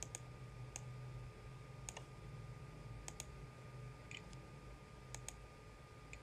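Computer mouse button clicking: about ten sharp clicks, several in quick pairs like double-clicks, over a faint steady hum.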